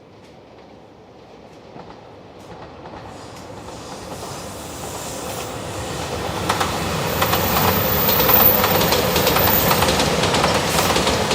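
A train approaching, growing steadily louder for about seven seconds, then passing close with a dense rumble and the rhythmic clack of its wheels over rail joints.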